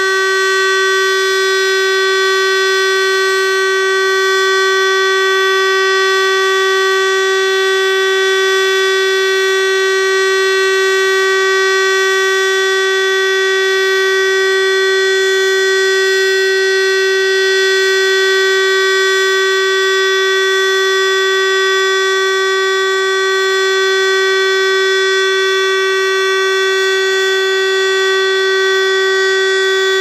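Roof-mounted civil defence siren sounding the Austrian all-clear (Entwarnung) signal: one loud, unbroken tone held at a fixed pitch, neither rising nor falling. The steady tone is what marks it as the all-clear rather than a warning.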